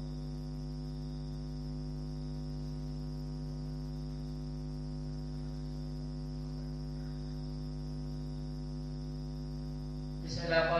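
Steady electrical mains hum with a faint, even high-pitched tone above it.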